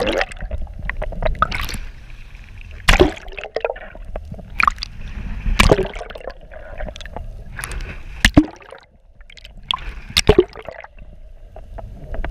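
Seawater sloshing and gurgling around a waterproof action camera held just under the surface, with several sharp splashes or knocks against its housing as it dips through the waves.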